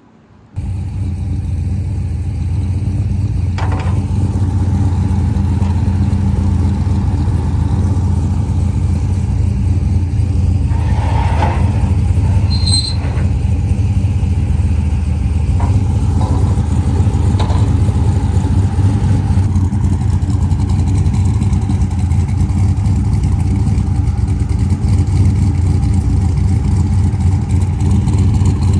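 Turbocharged LS V8 race truck engine idling steadily. A few short metal clanks come about a third of the way through and again a little later, as aluminium trailer ramps are handled.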